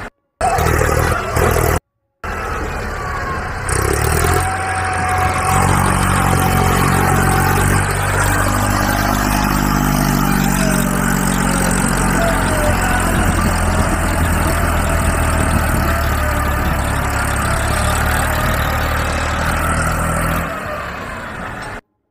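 Engine sound of a heavy vehicle running and revving, cutting out twice briefly near the start.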